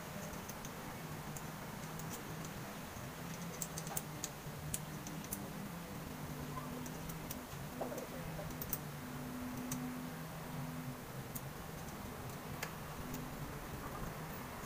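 A dove cooing in low, held notes, repeated in phrases, over scattered light clicks from small tools at the rifle's scope mount.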